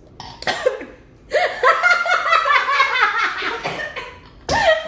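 A woman laughing hard: a few short sounds first, then a run of laughter lasting about two seconds, and one more loud burst near the end.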